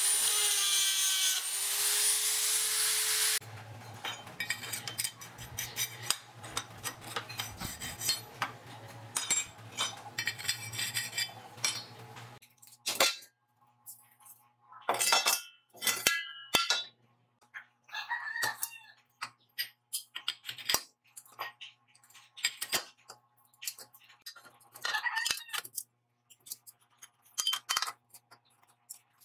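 Handheld rotary tool grinding the end of a steel tube, a steady hiss that stops about three seconds in. Then a low hum under dense crackling and ticks for several seconds, followed by separate metal clinks and knocks as steel square-tube frame parts are handled and set on a metal bench.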